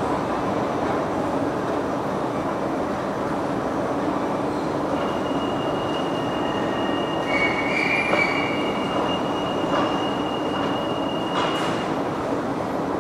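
Metro train running in an underground station: a steady rumble with a thin, high wheel squeal from about five seconds in until about twelve, louder for a moment near the middle.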